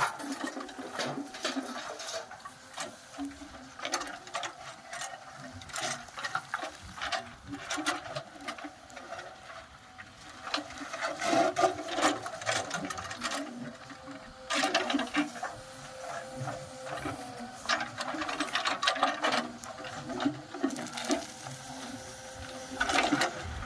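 Diesel engine of a JCB backhoe loader running with a steady mechanical clatter, growing louder in surges about halfway through and again near the end.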